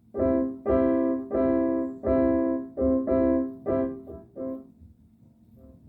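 Keyboard played in a piano voice, striking a quick run of repeated chords that each ring and fade. It pauses briefly near the end, then starts again.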